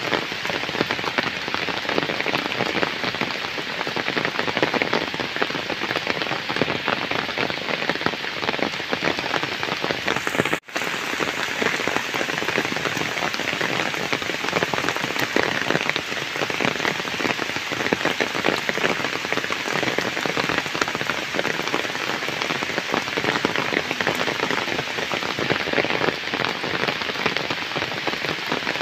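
Heavy rain falling steadily on flooded ground, a dense patter of countless drops. The sound cuts out for a split second about ten seconds in, then carries on.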